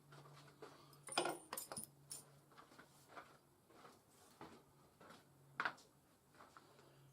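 Scattered light metallic clinks and knocks from tools and parts being handled, with a cluster of clatters about a second in and a sharper knock later on, over a steady low hum.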